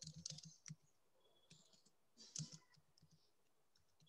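Faint computer keyboard keystrokes: a quick run of taps in the first second, then a few more about halfway through.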